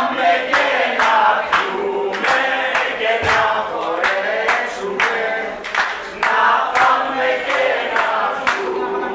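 A group of voices singing a Greek song together, with steady hand-claps in time, about three a second.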